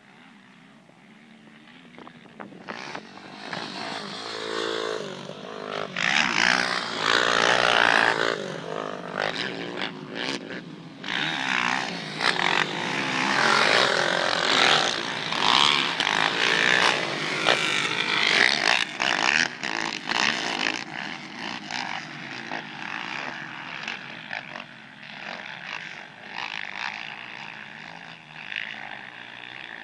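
450cc four-stroke race quads revving hard on a dirt motocross track, the engine note rising and falling through the gears. The sound builds over the first few seconds, is loudest through the middle as the quads pass close, then eases off over the last several seconds.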